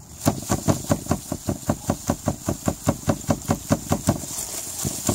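Freshly pulled celeriac being shaken hard to knock the soil off its roots: a rapid, even run of dull knocks, about five a second.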